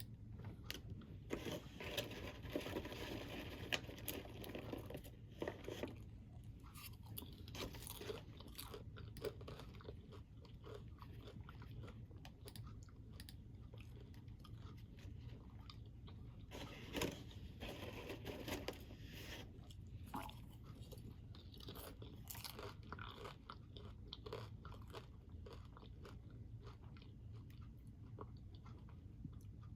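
A crunchy snack being chewed close to the microphone: bouts of crackling crunches, the busiest in the first few seconds and again around the middle, over a steady low hum.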